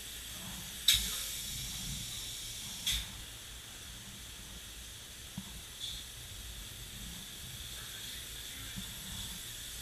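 Open-cell spray foam gun hissing steadily as foam is sprayed, with two short, louder bursts about one and three seconds in.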